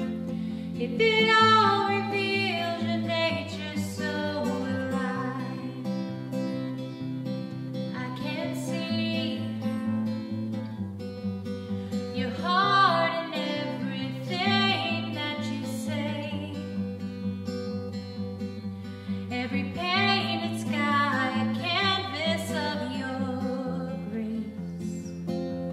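Worship music: a melody carried over held low notes that change in steps, with guitar.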